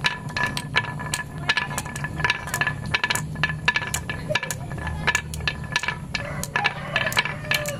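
Glass marbles dropped one after another onto a carved wooden zigzag track, rolling down the wood and clacking against the marbles already queued at the bottom. Irregular sharp clicks come several times a second.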